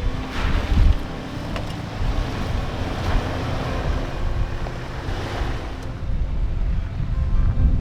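Wind buffeting the microphone over the wash of surf breaking on the shore. The surf swells louder shortly after the start and again around five seconds in.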